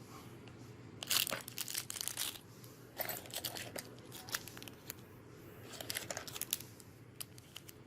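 Packaging crinkling and rustling in short bursts, about a second in, around three seconds in and again around six seconds in, as the doorbell's accessories are taken out of the box.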